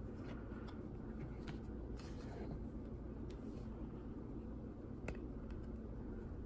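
Faint handling of trading cards: a few soft ticks and rustles, spread out, over a steady low electrical hum.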